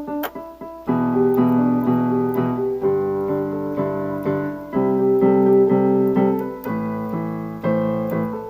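Background music: electric piano playing sustained chords.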